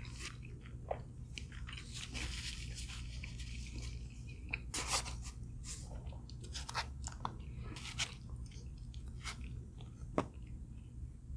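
Close-miked eating of crisp fried food: irregular sharp crunches from bites and chewing, about one a second, the loudest about five seconds in and near the end.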